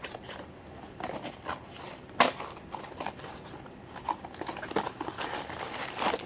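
Plastic blind-bag toy packaging being handled and crinkled, with scattered small clicks and one sharp snap about two seconds in.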